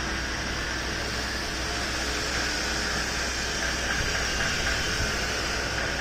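Steady construction-site machinery noise, a continuous hum and hiss, with a few faint knocks in the last couple of seconds.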